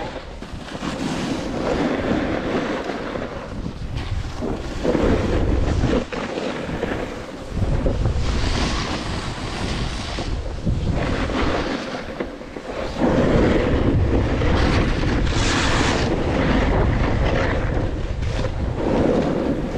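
Wind rushing over an action-camera microphone during a snowboard descent, with the board's edge scraping over packed snow in swelling surges as it turns.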